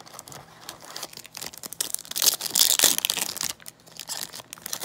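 A trading card pack's wrapper being torn open and crinkled by hand, a dense crackling that is loudest in the middle.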